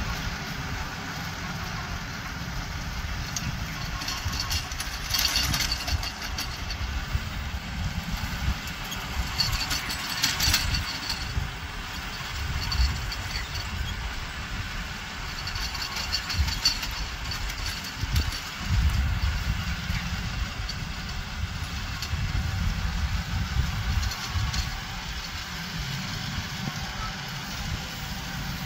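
Compact tractor engine running steadily while it pulls a rotary tiller through the soil, the rumble swelling and easing as it works.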